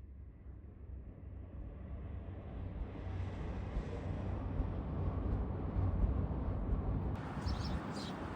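Low rumble of a moving vehicle that grows steadily louder over several seconds. Near the end it changes abruptly to outdoor sound with birds chirping.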